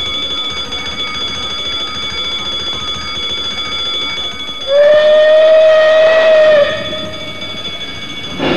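A platform electric bell ringing continuously. About five seconds in, a steam locomotive's whistle sounds one steady blast of about two seconds over it, the departure signal for a narrow-gauge steam train.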